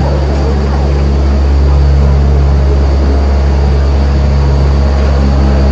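Open-sided zoo tram rolling along, its motor a steady low drone.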